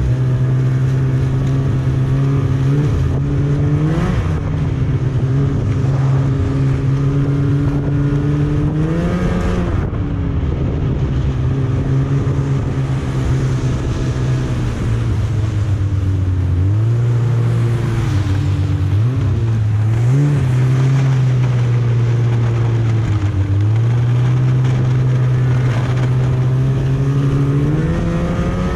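Snowmobile engine running steadily under way, its pitch rising briefly with the throttle a few times and dropping twice in the second half.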